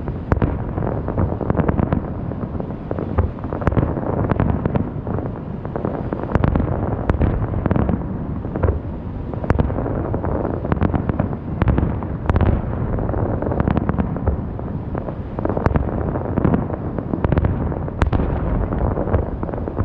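Fireworks display: a rapid, almost unbroken barrage of aerial shell bursts, sharp bangs piling on one another over a deep, continuous rumble.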